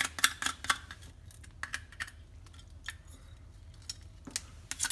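Hard crab shell and claws clicking and scratching as they are scraped clean by hand. The clicks are sharp and irregular, densest in the first second and again near the end.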